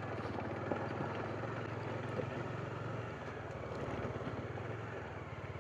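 Bajaj Dominar motorcycle engine running steadily while riding, with road and wind noise.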